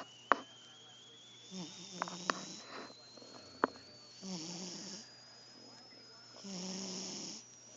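Domestic cat snoring in its sleep, three snoring breaths about two and a half seconds apart. A few sharp clicks fall between the snores.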